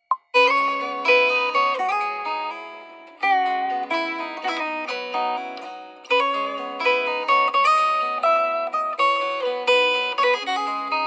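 A stock Redmi Note 7 (MIUI 10) ringtone playing: a bright melody of quick plucked-string notes, starting a moment in after a short blip.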